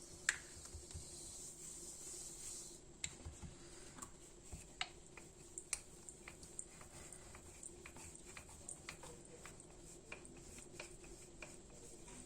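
Light, scattered clicks and taps from things being handled in a kitchen, over a faint steady hum.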